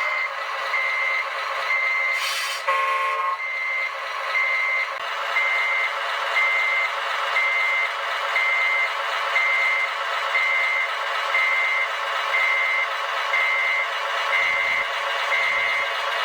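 An RC truck's electronic sound module playing a steady diesel engine sound with a reversing beeper sounding about once a second, showing the model is backing up. About three seconds in comes a brief hiss and a short tone, and the beeper pauses.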